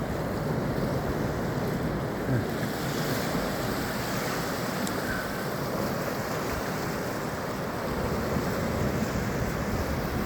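Ocean surf breaking and washing ashore in a steady rush as the tide comes back in.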